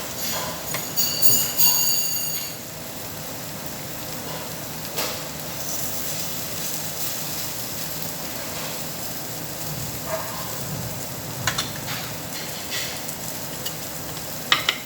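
Meat sizzling steadily on a Korean barbecue table grill, with a bright metallic ring near the start and a few sharp clicks, like tongs or utensils against the grill.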